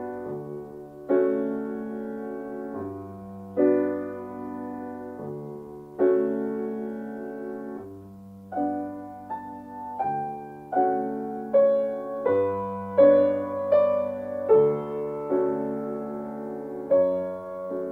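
Background piano music: slow struck chords, then a quicker melody of single notes from about eight seconds in.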